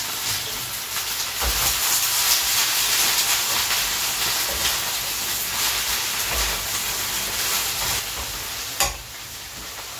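Hot oil sizzling in two frying pans as vegetable fritters fry and water spinach is stir-fried with a spatula. The sizzle grows louder about a second and a half in. A sharp knock near the end is followed by a quieter sizzle.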